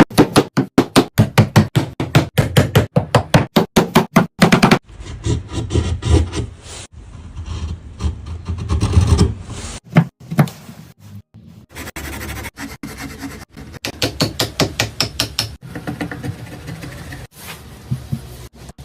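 Woodcarving on wood: a fast run of sharp knocks, about five a second, for the first four to five seconds, then tools scraping and rubbing across the wood, broken by scattered taps and a short run of knocks partway through.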